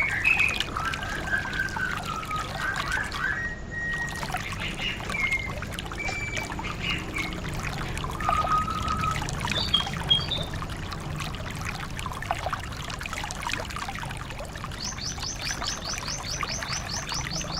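White-eye (pleci) birdsong over a steady sound of trickling water: short scattered chirps in the first half, then a fast, high trill of repeated notes starting near the end.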